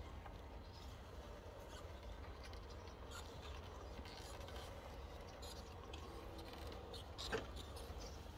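Faint scratching and clicking of an RC crawler working over rough ground, with a faint steady whine from its electric motor in the middle and one sharper click about seven seconds in.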